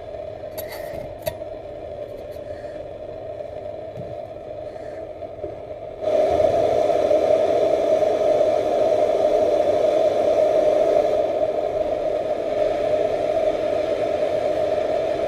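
Butane torch flame hissing steadily, with a couple of light clicks about a second in; about six seconds in it turns suddenly much louder and fuller and stays that way.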